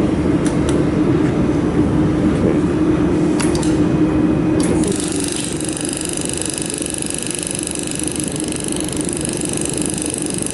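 Laser welding machine at work: a steady machine hum with a few sharp clicks, then about halfway through a high whine of several steady tones sets in and holds while the low hum eases.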